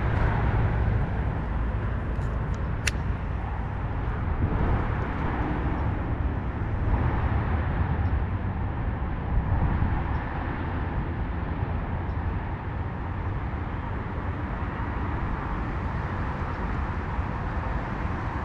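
Wind buffeting the microphone: a steady low rumble that rises and falls.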